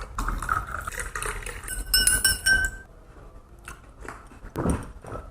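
Clinks of a spoon against a drinking glass, with a brief ringing tone from the glass about two seconds in.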